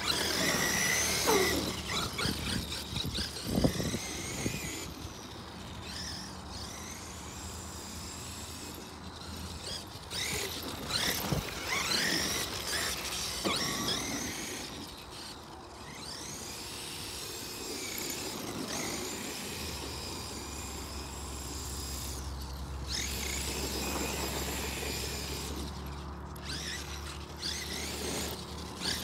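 Traxxas electric RC truck's brushless motor and drivetrain whining, the pitch rising and falling again and again with the throttle, over the hiss of tyres on grass. A couple of sharp knocks come from the truck landing or bouncing.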